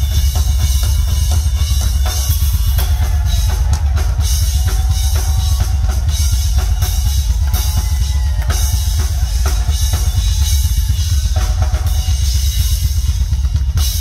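Rock drum kit played live through a concert PA, kick drum and snare driving a steady beat, with heavy booming bass.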